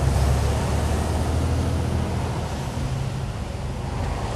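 Lorry cab interior noise while driving in the rain: a steady low engine drone with tyre and rain hiss.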